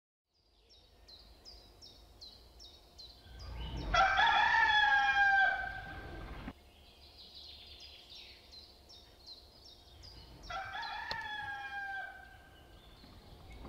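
A rooster crowing twice: a long, loud crow about four seconds in and a fainter one near the end. Behind it a small bird chirps steadily in quick repeated notes.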